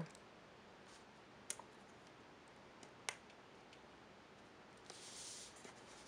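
Two sharp little clicks about a second and a half apart, with a smaller tick between them, over near silence: flex-cable connectors being pressed back onto a Samsung Galaxy S3's logic board. A brief soft rustle about five seconds in.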